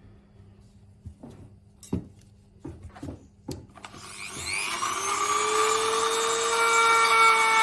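A few knocks as parts are handled, then a power tool or air tool starts about four seconds in: a whine that rises in pitch as it starts, then holds steady over a hiss and grows louder.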